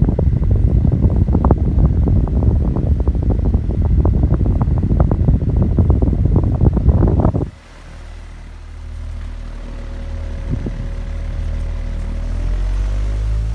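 Venti-Delta Premium pedestal fan, running without its grille, blowing hard onto the microphone with loud gusty buffeting. About seven and a half seconds in, this cuts off sharply to a quieter steady motor hum that slowly grows louder, with a whine rising in pitch near the end.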